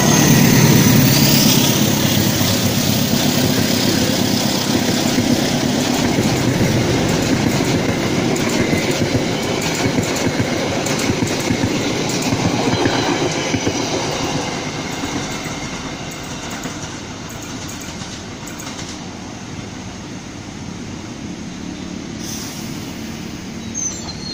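Diesel-electric locomotive passing close by, its engine loud at the start, followed by a long rake of passenger coaches rolling past with wheels clattering over the rail joints. The train noise fades away from about fourteen seconds in.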